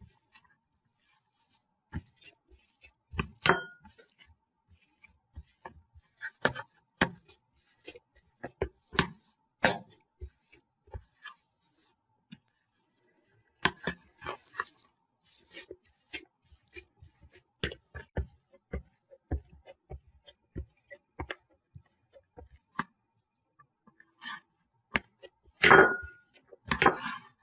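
Irregular soft knocks and taps of a palm mashing and kneading crumbly chena (fresh curd cheese) against a plate, with a short pause about halfway through.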